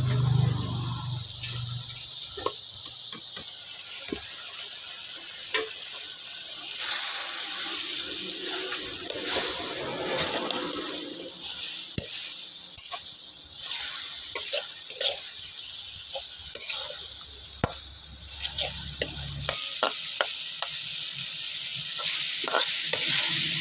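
Dried fish frying with green chillies and onion in a blackened karahi, sizzling steadily, while a metal spatula stirs and scrapes it, knocking against the pan in frequent short clicks.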